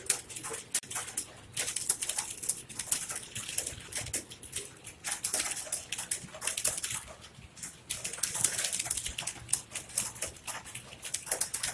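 Fast typing on several computer keyboards at once: a dense, continuous clatter of key clicks.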